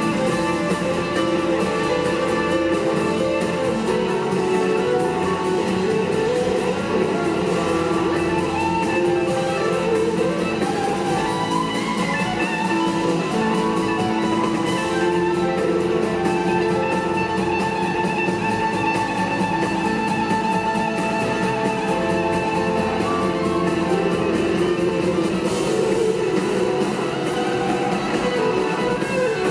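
Live rock band playing an instrumental jam: electric guitars over two drum kits.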